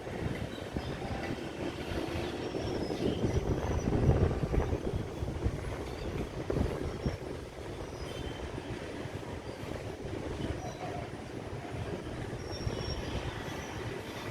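Heavy goods train behind a WDG-4D diesel locomotive rolling past on the rails, a steady rumble that peaks about four seconds in, with faint thin wheel squeals.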